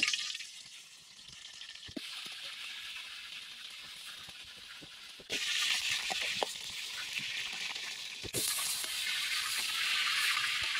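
Slab of pork belly frying in hot oil in a steel wok, sizzling steadily, with scattered light clicks of a metal spatula against the pan. The sizzle gets louder in two sudden steps, about halfway through and again near the end.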